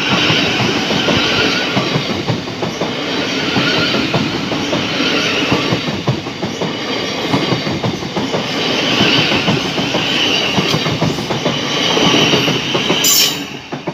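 Class 700 electric multiple unit passing close by, its wheels clattering over the rail joints in a steady run of knocks. The sound cuts off sharply near the end.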